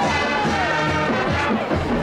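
Music playing at a steady level, with several pitched parts at once.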